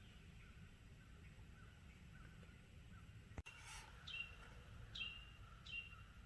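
Faint birdsong in the woods: short chirps that slide down in pitch, repeating about once a second in the second half, over a low steady background hiss. A single sharp click comes a little past halfway.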